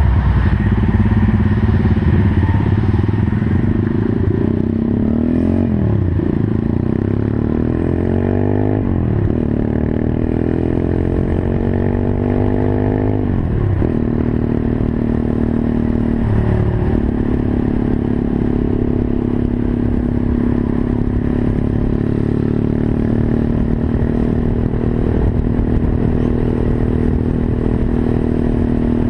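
Monkey bike's small single-cylinder engine accelerating up through the gears: its pitch climbs and drops back four times as it shifts up, then it holds a steady pitch while cruising from about halfway on.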